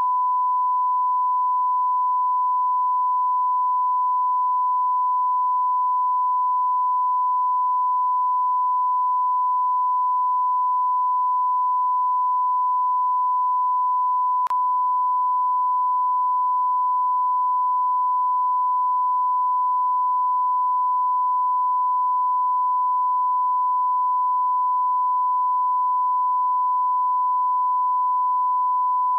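A continuous 1 kHz sine test tone, one steady pitch held without a break. It is the reference line-up tone that accompanies a broadcast colour-bar test card for audio level alignment.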